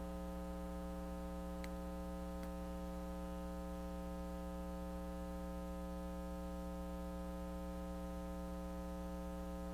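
Steady electrical mains hum, a low buzz that does not change. Two faint ticks come about one and a half and two and a half seconds in.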